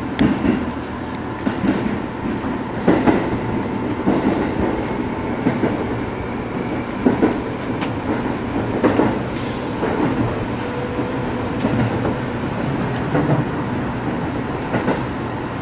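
Seibu Railway electric commuter train running, heard from inside the driver's cab: a steady running rumble with a faint tone, and wheels knocking at irregular intervals over rail joints and turnouts.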